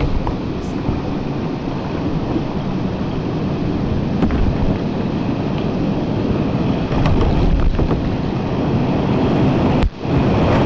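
River water rushing steadily, loud and heavy in the low end, with a sudden brief dropout and a few sharp knocks near the end.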